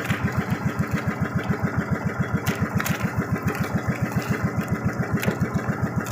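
Small boat engine of a bangka running at a steady low speed, a rapid even chugging of about eight beats a second.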